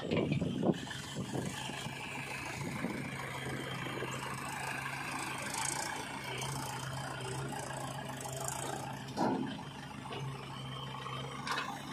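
Diesel engines of a JCB backhoe loader and a tractor running steadily, with mechanical rattling. Around nine seconds in, a load of soil pours from the backhoe bucket into the steel tractor trolley.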